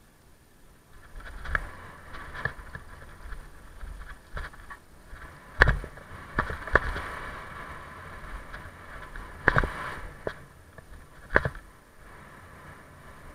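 Mountain bike riding fast down a dirt trail: a steady rush of tyres rolling over dirt, with sharp knocks and rattles from the bike hitting bumps and roots, the loudest a few seconds apart in the middle. It starts quiet and picks up about a second in.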